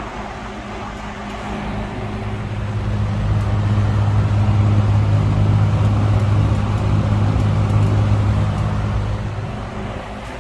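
20-inch single-speed Eskimo box fan (McGraw-Edison, model 20136) running on high: a rush of moving air over a steady electric motor buzz, a hum typical of these McGraw-Edison box fans. The hum grows louder a few seconds in and eases off again near the end.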